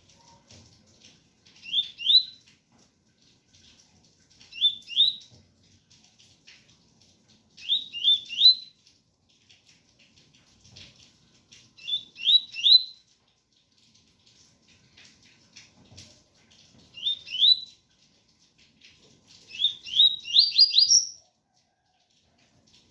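Double-collared seedeater (coleiro) singing its 'tui-tui' song: short phrases of two to four quick rising whistled notes, repeated about every three to four seconds, the last phrase longer and climbing higher. Faint rain patters underneath.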